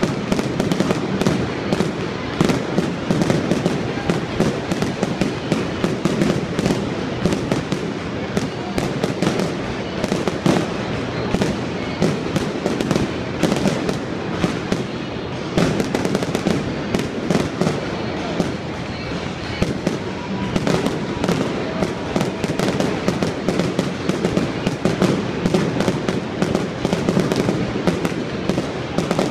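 Fireworks display going off nonstop: a dense, rapid run of pops, bangs and crackles, many each second, with no pause.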